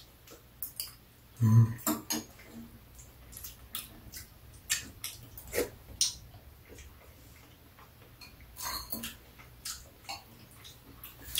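Metal spoons and chopsticks clinking and scraping against ceramic bowls as two people eat soup, with scattered light taps and the occasional sip. A brief low voiced hum about one and a half seconds in.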